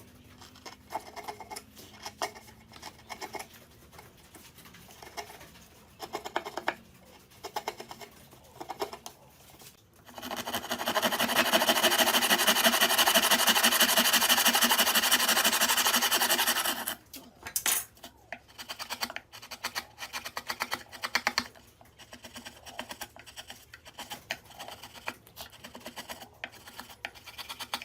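Hand tools working wood: scattered light taps and scrapes, then about ten seconds in some six seconds of loud, fast, continuous scraping of a tool across wood, stopping abruptly, before the light taps resume.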